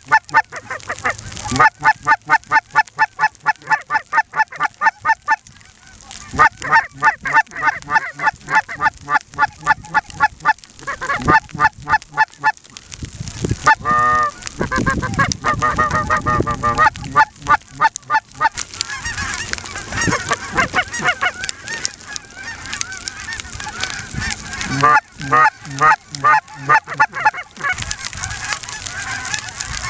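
Snow goose calling: runs of quick, evenly spaced honks, about four a second, broken by short gaps, with a looser, overlapping chorus of calls in the middle.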